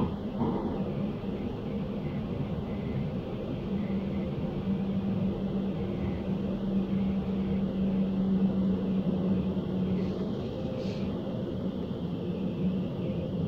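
Suburban train running, heard inside the passenger car: a steady rumble of wheels on the track with a humming tone that dips slightly in pitch near the end. A short hiss comes about eleven seconds in.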